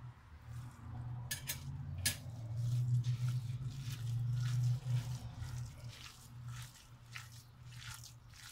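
Hand kneading raw minced beef with grated onion and spices in a glass bowl: scattered wet squelches and clicks, over a steady low hum that is loudest in the middle.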